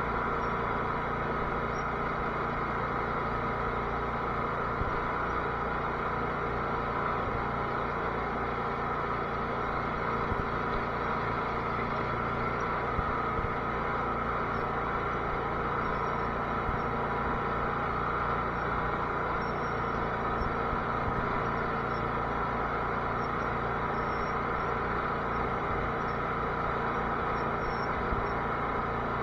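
Garden tractor engine running at a steady speed, its pitch holding even throughout.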